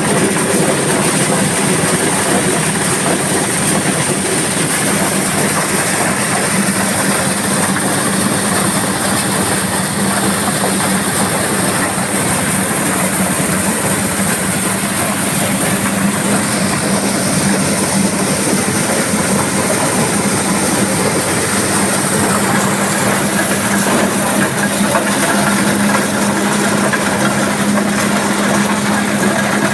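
Corn sheller driven by an 8 HP diesel engine running steadily at working speed: a loud, unbroken mechanical din with a constant hum underneath.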